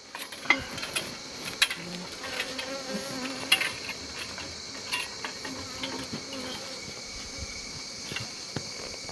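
Bees buzzing around open hives over a steady, high-pitched insect chirring, broken by several sharp clicks and knocks.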